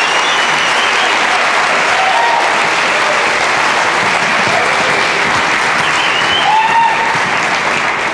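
Audience applauding steadily, with a few shouted cheers rising over the clapping, the loudest a little past the middle.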